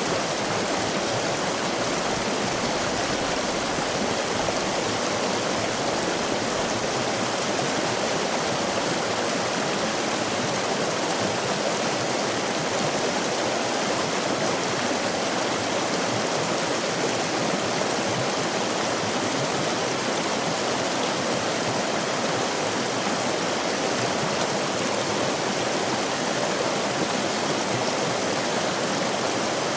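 A stream or river flowing: a steady, unbroken rush of water.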